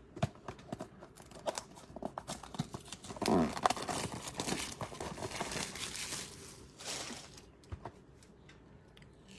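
Cardboard trading-card blaster box being torn open and its plastic-wrapped card packs handled, giving irregular crinkling, tearing and small clicks that are busiest in the middle stretch.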